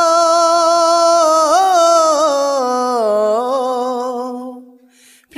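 A solo male voice singing a Bengali Islamic gojol, holding the last syllable of a line as one long note with ornamental turns. The note slides lower about two and a half seconds in and fades out about four and a half seconds in, and after a brief pause the next line begins near the end.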